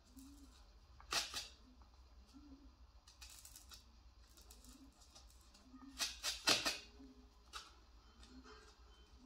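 Short scratchy strokes of a hand-held pen tool's tip dragging across a dried gourd shell. There is one about a second in and a quick run of three or four around six seconds, over a faint low hum.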